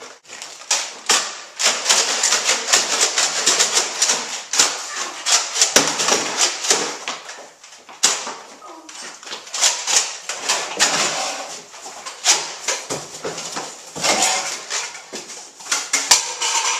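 Close rustling and handling noise, with many quick clicks and knocks and a few short pauses, as the camera is carried and set in place.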